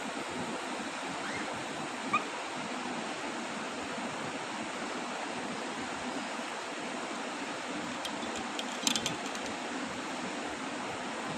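Steady background hiss with a single short, rising bird chirp about two seconds in, likely from a cockatiel, and a few faint clicks near the end.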